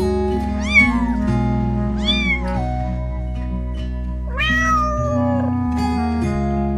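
A cat meowing three times over background music with held notes. Each meow rises and then falls in pitch, and the third, about four seconds in, is the longest.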